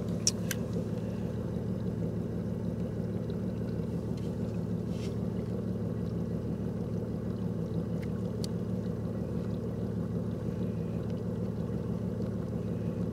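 Steady low hum of a bass boat's motor running, with a few light clicks.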